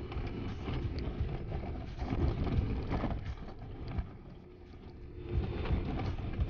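Suzuki Jimny driving slowly over a rough, stony dirt track, heard from inside the cab: a low engine and tyre rumble with scattered knocks and rattles as it rides over the bumps.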